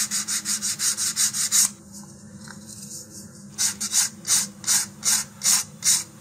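Sandpaper on a sanding tee rasping back and forth along the edge of a paper-skinned balsa fin in quick, even strokes, about five a second, smoothing the glue-hardened paper edge. The strokes stop for about two seconds partway through, then start again.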